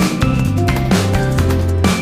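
Background music with a steady beat: electronic-sounding drums over sustained bass notes.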